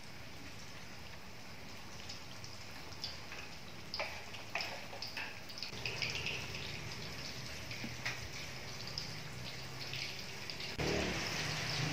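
Banana fritters deep-frying in hot oil in a wok: a steady sizzle with scattered pops and crackles. The noise grows louder about a second before the end.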